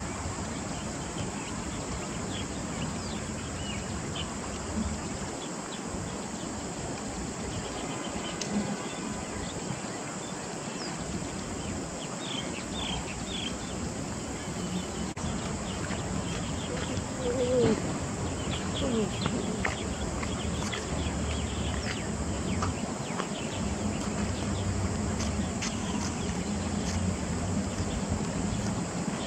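Outdoor creek-side ambience: a steady high hiss over a low rumble, with scattered short, high bird chirps.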